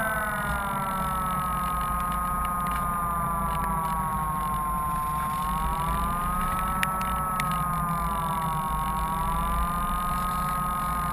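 Electric motor and propeller of an RC motor glider whining, heard from a camera on board, its pitch sinking at first and then slowly rising and falling twice, over wind rush on the microphone.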